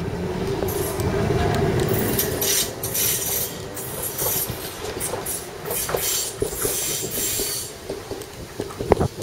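Electric tram running past on its rails: a steady motor hum over wheel-on-rail rumble, loudest in the first couple of seconds and easing as it moves on, with scattered clicks from the wheels and a sharper click near the end.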